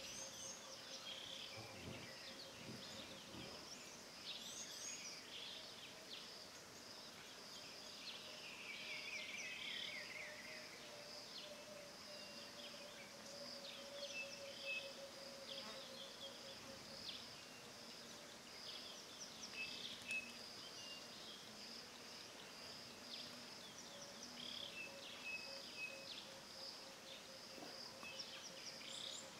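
Faint bush ambience: a steady high insect drone with a low hum beneath it, and scattered short bird chirps and calls. Around eight seconds in, a run of notes falls in pitch.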